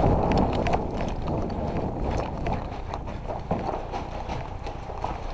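Footsteps of a person moving on foot, with rustling and knocking of gear and a rumble on the microphone that fades toward the end. Scattered short clicks run through it.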